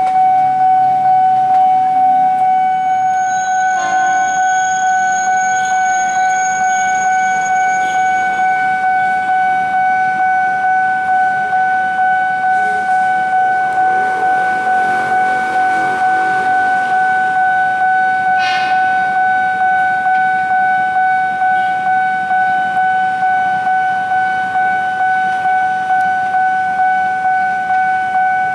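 Railway level-crossing warning bell ringing continuously, one steady pitch struck over and over in an even repeating rhythm, signalling that a train is approaching. A brief swell of noise comes about halfway through.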